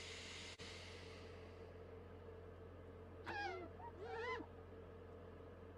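A hiss, as of gas filling the car, fading away over the first two seconds. Then two short, wavering cries that rise and fall, about three and four seconds in.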